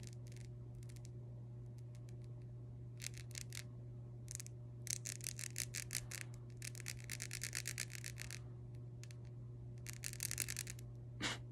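Dip-powder fingernails tapping and clicking against each other in quick runs of sharp clicks, several bursts with short pauses between.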